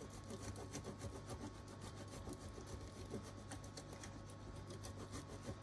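Hard cheese grated by hand over a pan of chicken in cream sauce: quick, repeated scraping strokes of the cheese against the grater, over a steady low hum.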